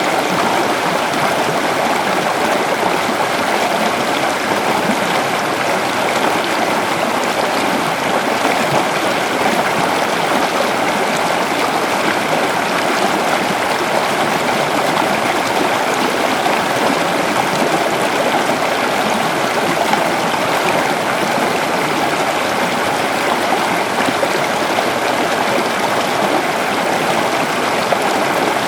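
Waterfall: a steady, even rush of falling and flowing water.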